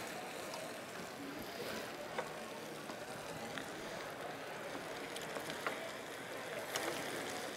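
Steady hiss of stir-fry vegetables sizzling and simmering in a wok, with a few light clicks of utensils against the pan and dishes.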